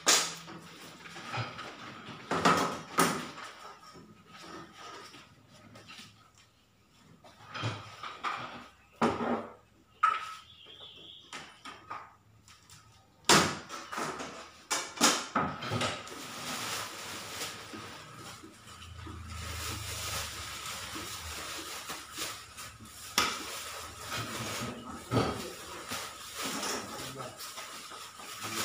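Irregular clicks, knocks and scraping from hand tools worked on a road-sign panel while reflective sticker lettering is laid and trimmed. A steady hiss sets in about halfway through.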